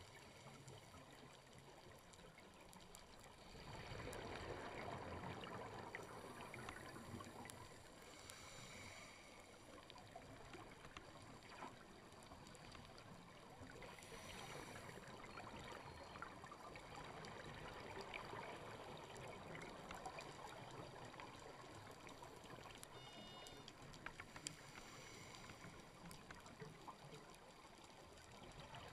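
Faint underwater ambience on a reef dive, heard through a camera's waterproof housing: a steady hiss with a crackle of small clicks and several swells of rushing water noise, the loudest about four seconds in.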